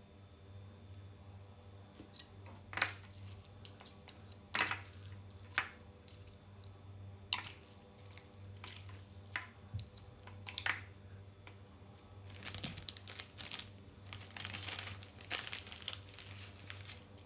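Close-miked eating of Chapaguri noodles: irregular clicks of utensils against a bowl, with short bursts of chewing and slurping that get busier in the second half, over a steady low hum.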